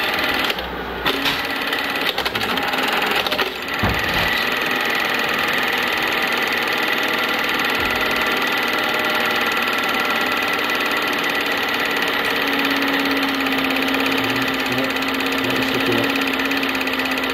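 Film projector running: a steady mechanical clatter of the motor and film transport, with a low hum that comes in about two-thirds of the way through.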